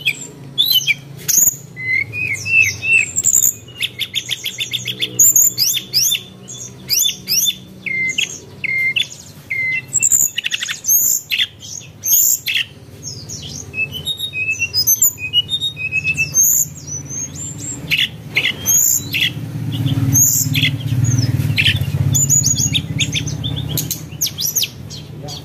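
Small birds chirping and twittering, with many short quick calls and fast trills, over a low steady hum.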